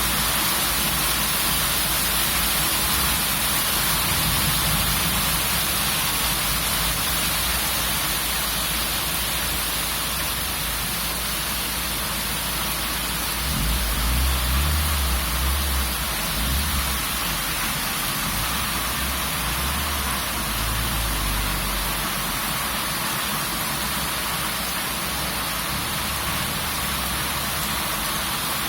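Heavy rain and strong wind in a storm: a dense, steady hiss, with a low rumble rising about halfway through and again briefly a little later.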